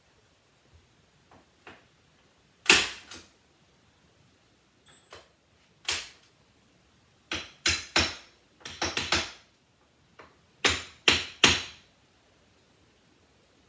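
Irregular sharp knocks and taps, about a dozen in all, several coming in quick runs of two or three; one of the loudest is about three seconds in.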